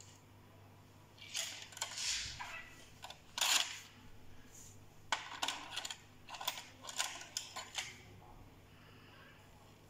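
Sony MDS-JE640 MiniDisc deck's auto-loading mechanism ejecting a MiniDisc with a run of mechanical clicks and whirring, the loudest clack near the middle, then a second series of clicks a few seconds later as it draws a reinserted disc back in. The mechanism has just been repaired with a replacement spring from a cassette deck and is working.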